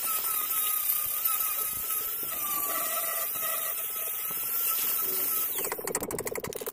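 Angle grinder running against the steel body panel of a Mini at a welded patch repair, a steady high whine with hiss. About five and a half seconds in, the sound turns into a rapid fluttering pulse.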